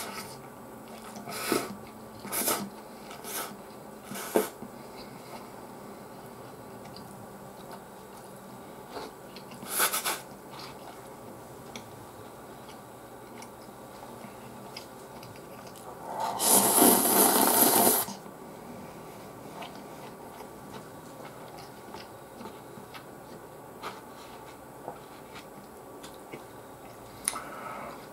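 Eating sounds from a person having Chicken Ramen instant noodles with bread. There are a few short mouth noises from biting and chewing in the first few seconds. Past the middle comes a loud slurp of noodles lasting about a second and a half.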